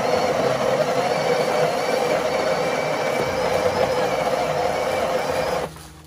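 Breville Barista Express's built-in conical burr grinder grinding coffee beans straight into the portafilter. It is a steady motor whir with a grinding hum, cutting off suddenly near the end as the automatic double dose finishes.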